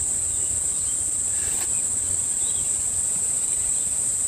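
Chorus of insects shrilling, one steady, unbroken high-pitched tone.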